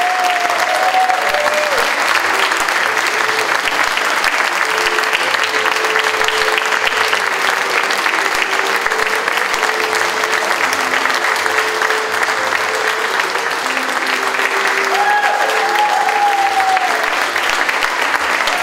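Theatre audience applauding steadily through a curtain call, with soft music of held notes underneath. A drawn-out cheer rises over the clapping at the start and again about fifteen seconds in.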